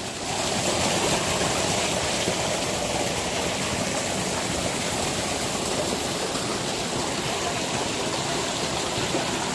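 Stream water rushing steadily, an even wash of noise with no breaks.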